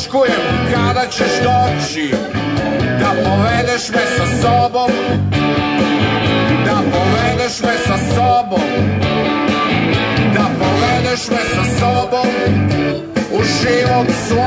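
Rock music with guitar over a steady, repeating bass line, playing loudly and without a break.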